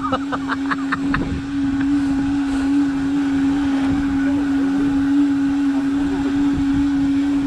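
Fishing boat's engine running steadily: a constant hum with a noisy wash over it.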